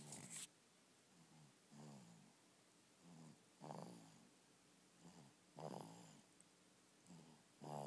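A 16-week-old baby snoring softly in her sleep, about one breath every two seconds: each a short, weaker sound followed by a longer, louder one. A brief burst of noise comes right at the start.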